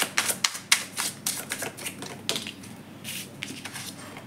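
A deck of tarot cards being shuffled by hand: a quick, irregular run of papery card-on-card flicks and slaps that thins out after about two seconds, as a card is drawn from the deck.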